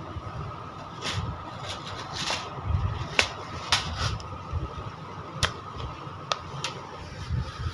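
Sewing machine stitching a pleated skirt panel in short spurts: irregular sharp clicks over a steady hum as the pleats are fed under the needle.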